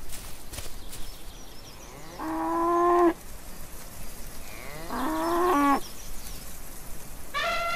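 Cow mooing twice, each moo about a second long and growing louder before it cuts off. A third, higher-pitched call begins near the end.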